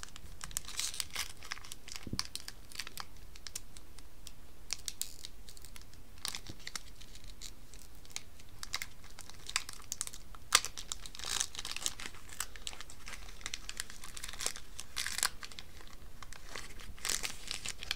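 Foil Magic: The Gathering booster pack wrapper being torn open and crinkled by hand: irregular crackling and rustling throughout, with one sharp, louder crackle a little past halfway.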